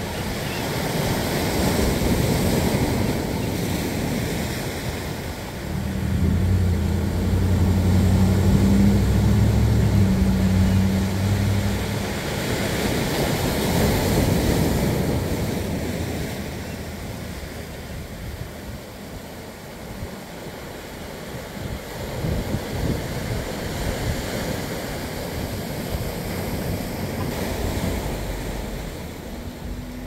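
Ocean surf breaking and washing over rocks, swelling and ebbing, with wind rumble on the microphone. A low steady hum joins from about six to twelve seconds in.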